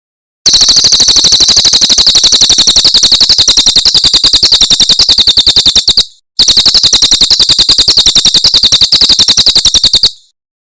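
Recorded cililin song played as a masteran, a training track for songbirds: a loud, high, rapid trill of about a dozen notes a second, in two long runs with a short break about six seconds in.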